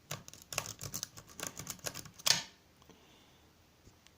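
Snake rake being raked in and out of a 75mm Home Protector shutter padlock's keyway, a quick run of metallic clicks as the pin tumblers are bounced, ending with one louder click a little over two seconds in.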